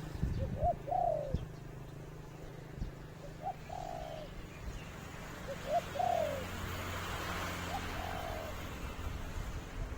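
A dove cooing: four phrases about two and a half seconds apart, each a couple of short notes and then a longer falling coo. A few soft knocks sound in the first second or so, over a steady low hum.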